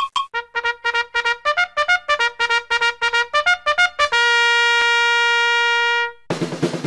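Intro music: a quick run of short, staccato brass-like notes, then one long held note about four seconds in, with drums coming in near the end.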